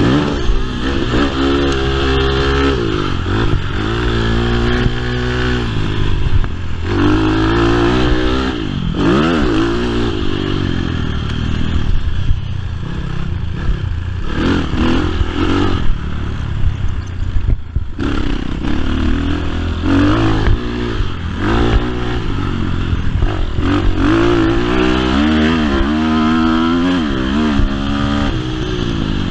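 BHR 300 R motocross bike's engine revving hard and falling off again and again as it is ridden around a motocross track, the pitch climbing and dropping every second or two. The sound drops away briefly a little past the middle, then picks up again.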